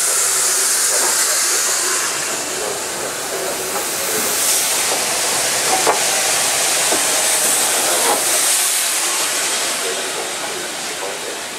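SR 'King Arthur' class 4-6-0 steam locomotive 30777 'Sir Lamiel' hissing steam loudly and steadily as it and its coaches roll slowly past along the platform, with an occasional faint clank.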